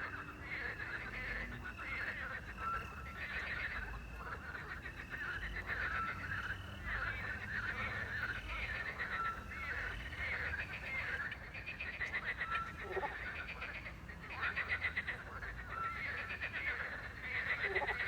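A chorus of many frogs croaking at once in a dense, overlapping mass, with a short steady note coming back every second or two.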